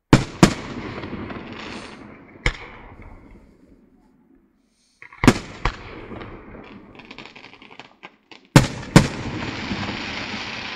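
Aerial firework shells bursting overhead: about seven sharp bangs, mostly in close pairs, each followed by a noisy fading tail with scattered small crackles.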